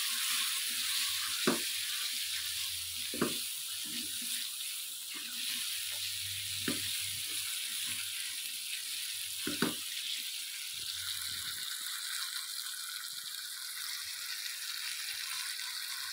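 Diced potatoes and green peas sizzling in hot oil and masala in a nonstick wok as they are fried and stirred with a spatula. There is a steady hiss, with a few sharp knocks of the spatula against the pan in the first ten seconds.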